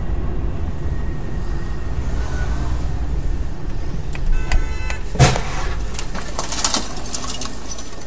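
Car driving in city traffic, heard from inside through a dashcam: a steady low road and engine rumble. Just before five seconds in there is a brief pitched tone, then a sharp knock, followed by a few smaller clicks.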